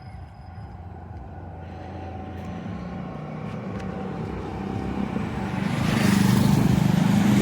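Ola S1X electric scooter being ridden, with a steady low rumble of road and wind noise that grows louder over the last couple of seconds.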